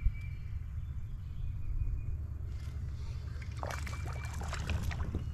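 Water splashing beside a kayak as a small hooked fish is reeled in and thrashes at the surface, a burst of splashes from about three and a half seconds in, over a steady low rumble.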